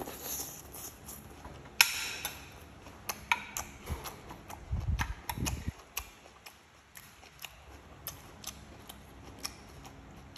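Eating sounds: a metal spoon clicking and scraping against a ceramic plate, with chewing and mouth clicks in between. A sharp clink stands out about two seconds in, and a few low thuds come around five seconds in.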